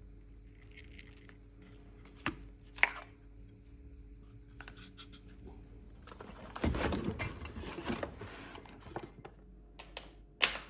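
Hard plastic clicks and clatter from a disposable pepper grinder being handled and worked open: two sharp clicks early, a longer stretch of rattling and scraping in the middle, and one loud click near the end.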